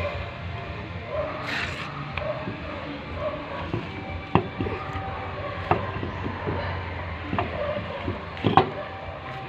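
A handful of separate sharp knocks and clinks, the loudest near the end, over a low steady hum.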